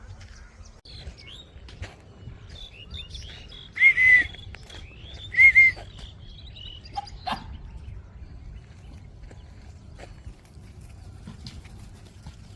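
An animal calling: two loud, short, high-pitched calls about a second and a half apart, with fainter chirps around them.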